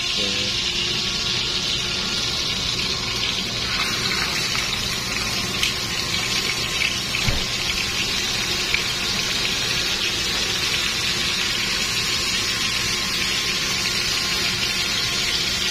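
Hot oil and butter sizzling steadily in a frying pan as tuna steaks go in, with a few light knocks and clicks around the middle.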